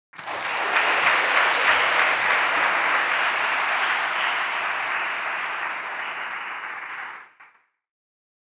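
Audience applauding, steady for about seven seconds, then fading and stopping.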